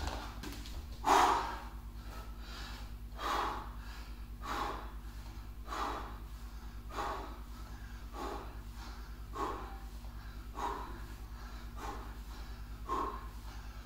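A man breathing hard through bodyweight squats, a sharp breath out about every second and a bit, steady with each rep. A steady low hum runs underneath.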